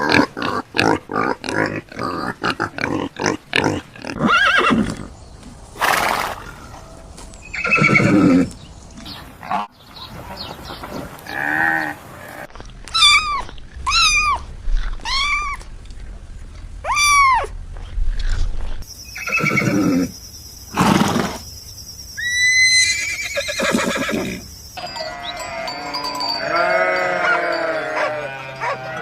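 A run of assorted farm-animal calls, one kind after another: quick short sounds at first, then single calls, a run of about eight repeated calls in the middle, and a dense chorus of many overlapping calls near the end.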